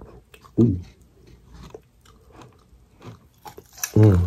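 Close-up chewing and crunching of a fried chicken wing, with many small crackling crunches. A short low hum from the eater comes about half a second in and again at the end.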